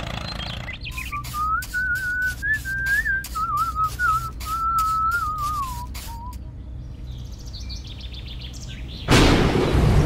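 A whistled tune wandering up and down over a light ticking beat, from about one second in until about six seconds. Faint high chirps follow, then a sudden burst of thunder and heavy rain near the end.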